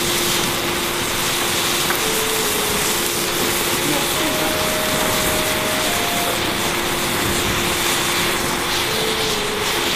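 A pyrotechnic chemical mixture burning fiercely in a flaring jet of flame, giving a steady loud hiss. Faint held notes of a slow tune change pitch every second or two underneath.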